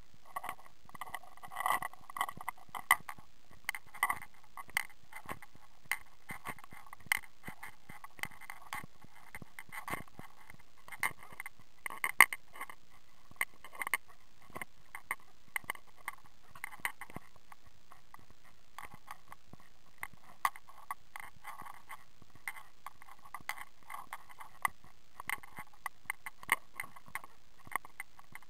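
Footsteps crunching on a stony dirt trail: an uneven run of short scuffs and clicks of boots on gravel and loose stones.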